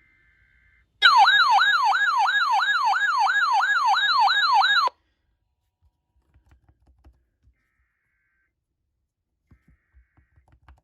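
An electronic siren-style tone starting about a second in, sweeping quickly up and down about three times a second for roughly four seconds, then cutting off suddenly.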